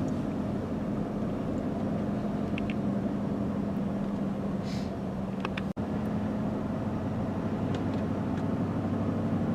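Vehicle engine running steadily, heard from inside the cab as an even low hum with road or engine noise. It drops out for an instant a little before six seconds in.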